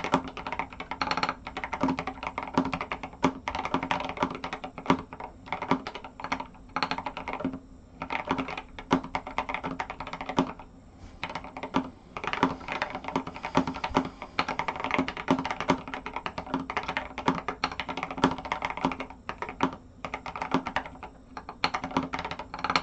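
Fast, continuous typing on a Pearl mechanical keyboard with SA-profile Godspeed keycaps: a dense, irregular clatter of keystrokes, broken by a few brief pauses.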